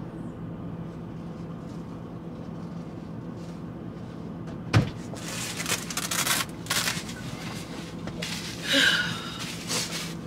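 Steady low hum of the truck cab, with a sharp knock about five seconds in followed by rustling and handling noises as paper towels are fetched from the sleeper.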